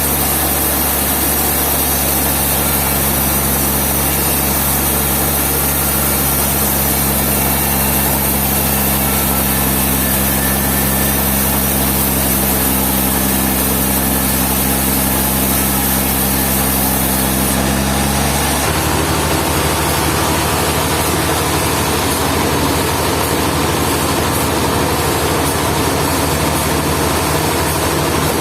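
A heavy engine running steadily, its low tone shifting suddenly about two-thirds of the way through.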